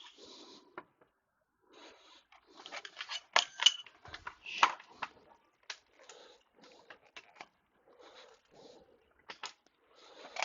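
Irregular light clicks and taps of hands working at a computer, with a few sharper knocks near the middle.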